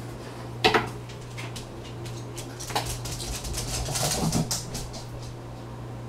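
Small hard household objects being handled and set down: a sharp knock near the start, then a run of light clicks and clatter around the middle, over a steady low hum.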